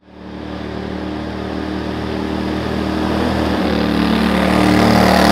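A boat's motor running steadily under way. It fades in from silence at the start and grows gradually louder.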